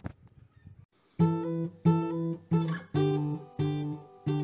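Intro music of guitar chords strummed one after another, about six of them, starting about a second in.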